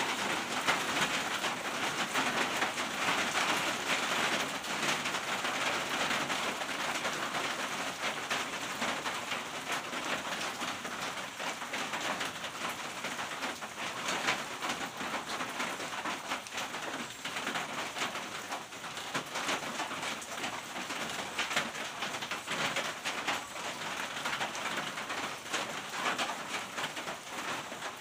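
Steady rain falling on a tin roof, a dense patter of drops that eases slightly after the first few seconds.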